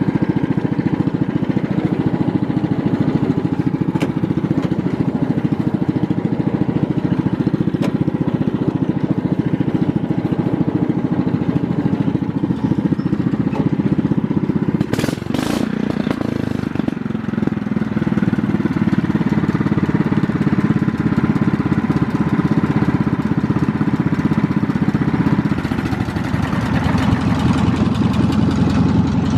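Craftsman riding mower's engine running steadily after a cold start. A couple of sharp knocks come about halfway, and the engine note turns fuller and louder near the end.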